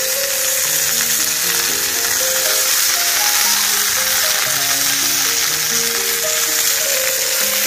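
Sirloin steak sizzling steadily in a hot cast-iron pan, a dense high hiss of frying fat. Background music of slow, held notes plays under it.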